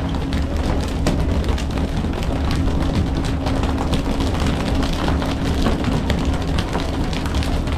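Fishing boat's engine running steadily with a low drone, under a constant wash of water noise and scattered irregular knocks and clatter on deck.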